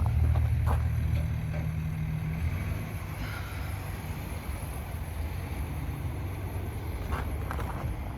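Low steady rumble of a vehicle engine, easing after about two and a half seconds. A few faint footsteps near the end.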